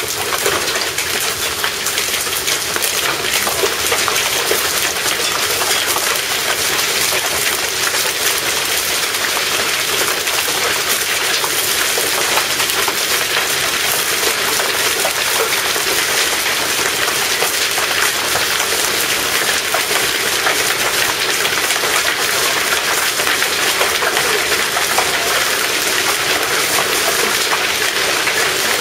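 A hailstorm's rain and hail pelting down steadily, a dense, even hiss packed with countless small ticks of hits.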